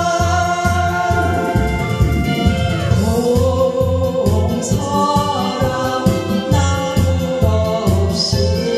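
A woman singing a Korean trot song into a microphone over a backing track, with a steady bass beat about twice a second under held, wavering vocal notes.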